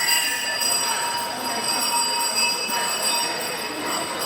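Cowbells ringing continuously in a dense metallic clatter, with many high ringing tones held throughout.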